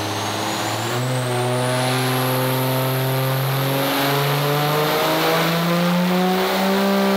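Dodge Ram's 6.7 L Cummins turbo-diesel under full load on a chassis dyno during a power pull. The engine note climbs steadily in pitch, with a step up about a second in, while a high turbo whine rises alongside it. The throttle closes right at the end.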